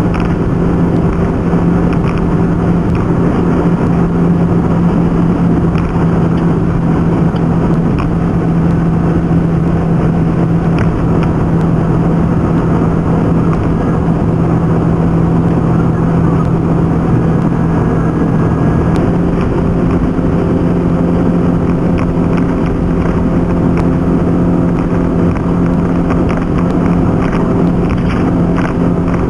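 A car cruising on an expressway: steady engine hum with road and wind noise. The engine note shifts slightly about two-thirds of the way through.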